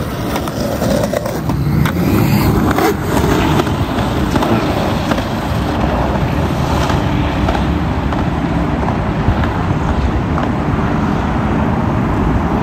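Skateboard wheels rolling fast on asphalt while bombing a steep hill, a steady, loud rolling noise that grows a little louder about two seconds in.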